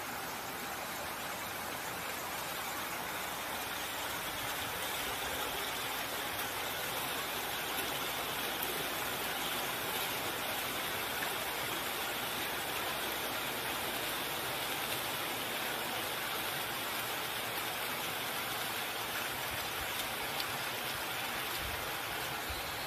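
Park fountain's water jets and cascading water wall splashing into the basin: a steady rush of falling water, growing a little louder over the first several seconds.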